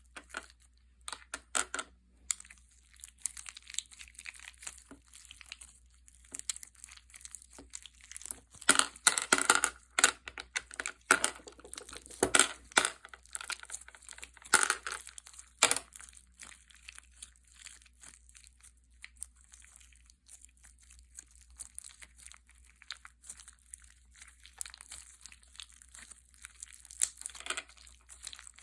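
Slime being squished and stretched by hand, making crinkly, crackling sounds in irregular bursts with sharp pops, loudest and busiest about a third of the way in, quieter in the middle and picking up again near the end.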